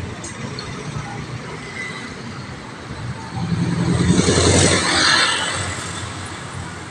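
Steady urban street traffic, with a minivan's engine and tyres passing close by: it builds about three and a half seconds in, is loudest around four to five seconds, then fades away.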